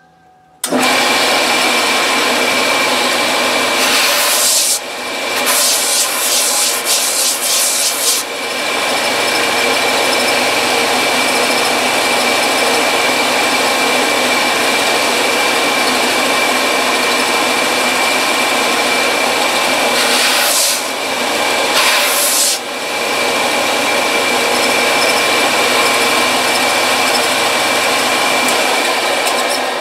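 Electric belt sander with an 80-grit belt grinding a wooden rifle stock, a steady loud rasping over the motor's whine. It starts abruptly about half a second in, turns harsher in a few stretches, and dies away near the end.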